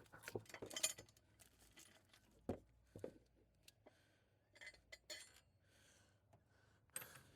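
Mostly near silence, broken by a few faint, sharp metallic clinks and ticks of hand tools and loosened engine hardware being handled: a quick cluster in the first second, then single clicks spaced a second or two apart.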